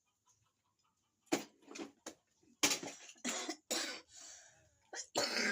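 A person coughing in a string of short, harsh coughs, in two or three clusters with short pauses between.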